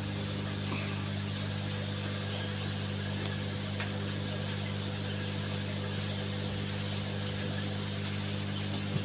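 Steady low mechanical hum with a faint hiss from running aquarium pumps and filters, with a single small click just before the end.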